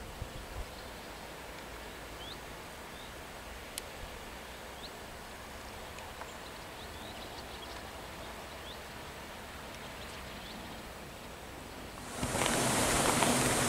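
Quiet countryside ambience with a few faint, short high chirps. Near the end, a much louder steady rushing noise sets in suddenly.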